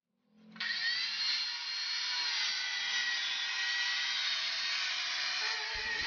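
Handheld electric circular saw starting up about half a second in and ripping lengthwise along a wooden board, a steady high whine with cutting noise; a lower rumble joins near the end.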